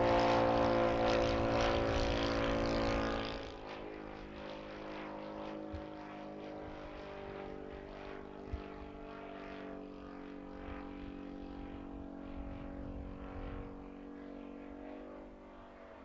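Engine and propeller of a Seagull Models Junkers Ju 87 Stuka radio-controlled scale model in flight, a steady drone. It is loud at first, drops off sharply about three seconds in, then carries on fainter as the plane flies far off.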